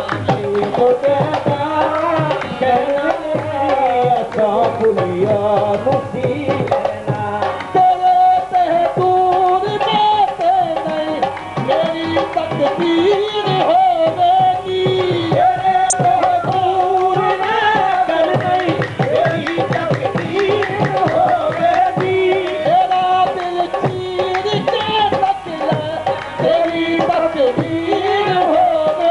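Qawwali music: harmoniums carrying the melody over a steady tabla rhythm, with voices singing.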